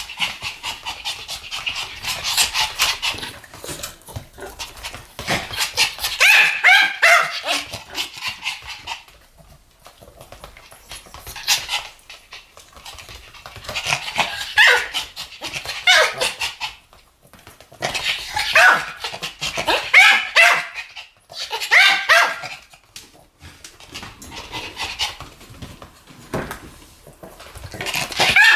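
Two Pomeranians barking together in a duet: rapid runs of sharp barks in bursts of several seconds, broken by short pauses.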